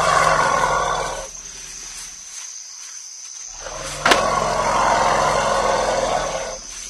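African forest elephant roaring twice, each call a loud, drawn-out rumbling roar of a few seconds, with a sharp click about four seconds in.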